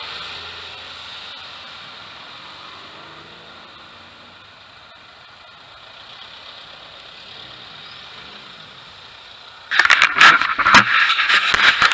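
Cars driving slowly past, engines running at low speed with a steady hum of road noise. Near the end, loud irregular rubbing and knocking as the camera is handled close to its microphone.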